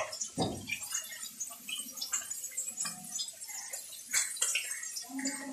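Green chillies being sliced on a boti, the traditional Bengali curved blade held upright on a base, giving a run of small, irregular clicks and snips as each piece is cut off.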